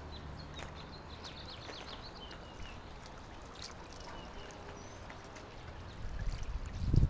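Water welling up through a drilled rock bubbler fountain and trickling over the stone, a steady burble. Near the end a low, buffeting rumble rises over it and is the loudest sound.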